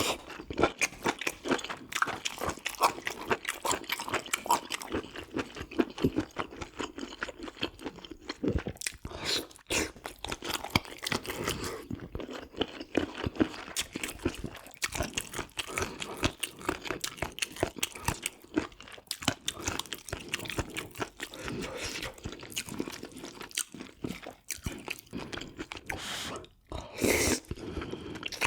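Close-miked chewing and biting of food, with a steady run of crunchy, wet mouth clicks and a short pause near the end.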